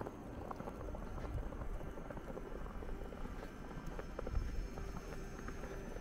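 Footsteps crunching through fresh snow in an irregular patter, over a low rumble.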